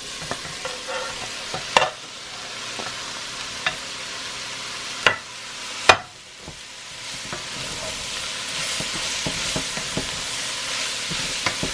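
Chopped amaranth greens sizzling in hot oil in a pan as they are stirred and sautéed, with sharp knocks of the utensil against the pan, the loudest about two, five and six seconds in. The sizzle grows louder in the second half.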